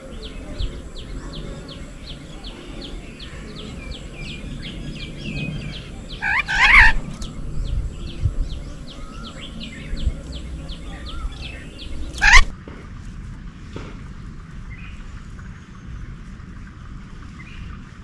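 Garden birds calling: a steady series of short high chirps, about three a second, with two loud harsh calls about seven and twelve seconds in; the chirping stops right after the second.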